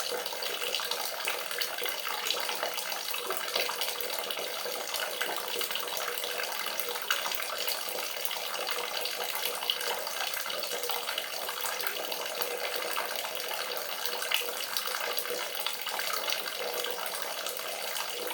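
Running water splashing steadily and continuously, with small irregular splashes through it.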